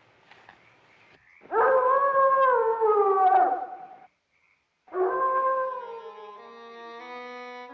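Wolf howling twice: a long howl that falls in pitch at its end, then a second one that fades as bowed-string music comes in near the end.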